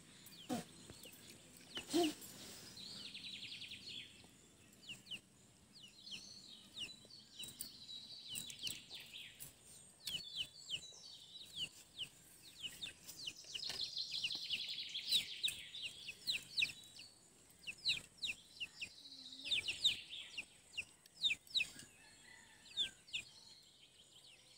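Small birds chirping in repeated bursts of quick high notes, with scattered sharp clicks and taps among them.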